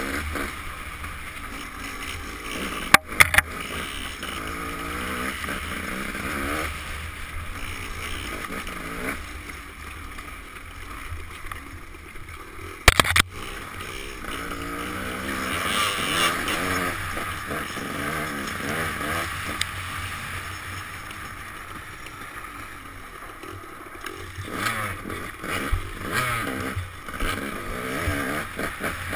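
Dirt bike engine heard from a helmet camera, revving up and down again and again, with sharp knocks about three seconds and thirteen seconds in.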